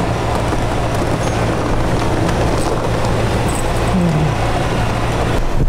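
Strong wind buffeting a camping tent hard enough to shake the whole tent: a steady, loud rush with heavy low rumble, wind hitting the microphone.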